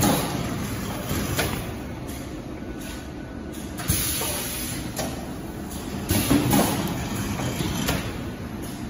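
A high-frequency PVC film welding and cutting machine running: a steady mechanical hum and hiss broken by sharp clunks every second or two at uneven intervals.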